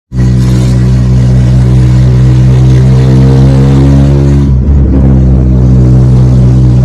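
Carbureted VW AP 1.8 four-cylinder with a 4x1 header and a straight pipe, running loud and steady. The exhaust note breaks briefly about four and a half seconds in, then carries on.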